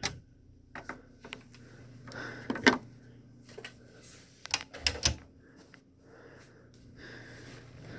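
Scattered clicks, taps and knocks of small hard objects being handled, the sharpest about two and a half seconds and five seconds in, over a low steady hum.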